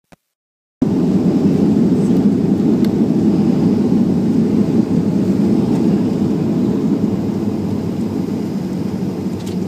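Inside the cabin of a jet airliner on its landing rollout, with its ground spoilers raised: a loud, steady low rumble that slowly eases as the plane slows. The sound cuts out entirely for the first second.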